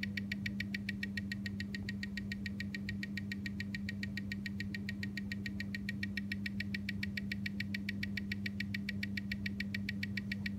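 Omega calibre 8500 co-axial movement ticking at 25,200 beats per hour, about seven even ticks a second, amplified by a timegrapher's microphone over a steady low hum. The beat is regular: the timegrapher reads the watch at 0 s/day with about 345° amplitude and 0.2 ms beat error, a healthy, on-rate movement.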